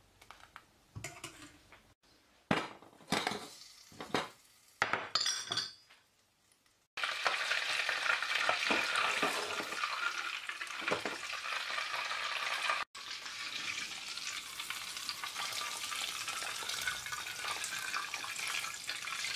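A ladle stirring thick lentil soup in a steel pot, heard in short bursts, then hot butter sizzling steadily from about seven seconds in, first in a small copper pan and then as it is poured over the soup, with a brief break about 13 seconds in.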